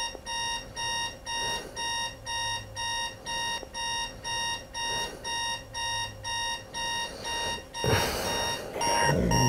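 Digital alarm clock beeping in a steady pulse, about two beeps a second, with a rustling noise from about eight seconds in.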